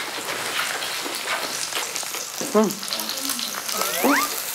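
Pork belly sizzling on a cast-iron cauldron-lid grill (sotttukkeong), a steady crackling hiss, with two short voice-like sounds about two and a half and four seconds in.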